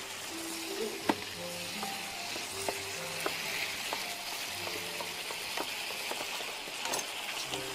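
Sausage slices and spices cooking in a nonstick frying pan, with a steady sizzle and a few sharp taps scattered through.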